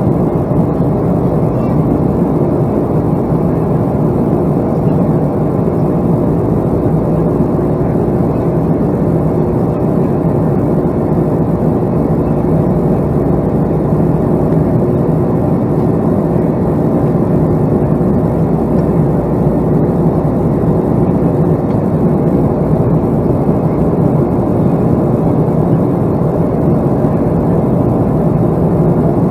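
Steady, even low rumble of a Boeing 757-200 airliner's engines, with a faint steady hum in it and no change in pitch or level.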